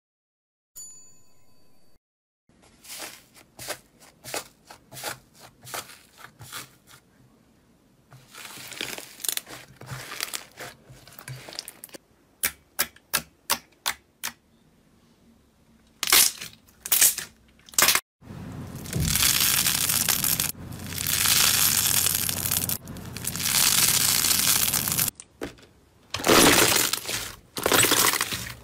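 Hands pressing, poking and kneading slime: a run of sharp wet clicks and pops as air pockets burst, then longer stretches of crackling, crinkling squish in the second half. A short electronic tone sounds right at the start.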